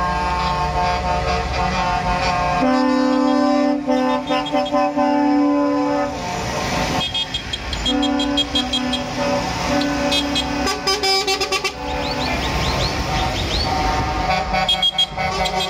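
Vehicle horns honking from decorated trucks and tractors driving past one after another, with several long held blasts and quicker short toots in between, over the sound of the passing vehicles.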